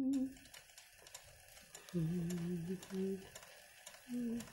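Sewing machine stitching freehand machine embroidery, running in short bursts of under a second with pauses between as the fabric is guided under the needle.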